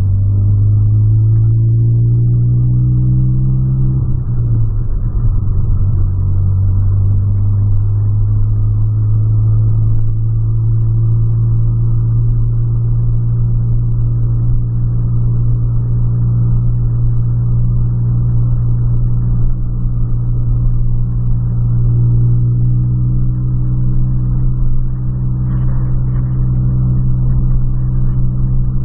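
Volkswagen Polo's engine heard from inside the cabin while driving: the pitch rises for the first few seconds, drops about four seconds in, then settles into a steady drone.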